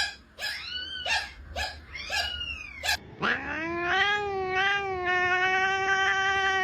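Cat giving a quick run of about six short meows, then one long drawn-out yowl that rises at the start and holds steady.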